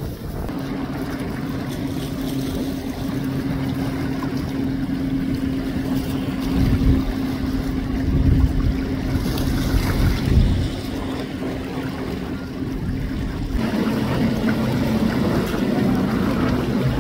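Boat engine running with a steady drone, over a haze of wind and water noise, with a few low rumbles of wind on the microphone about halfway through.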